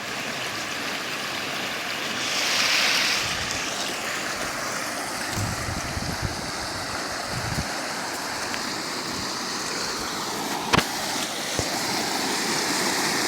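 Heavy rain falling in a steady hiss. It swells briefly about two seconds in, and there is a sharp knock near the end.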